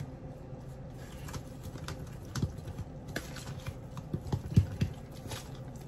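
A fork stirring egg, milk and water into wet batter in a plastic tub, with irregular clicks and taps against the tub. The taps come faster and louder in the second half.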